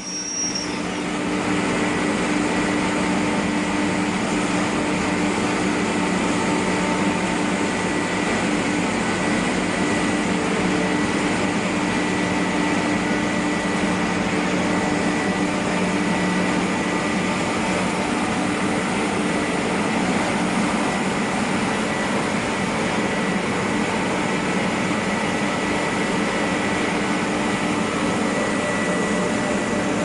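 UniVac industrial vacuum loader running steadily: an even rush of air from its vacuum blower under a low hum and a thin, constant high whine.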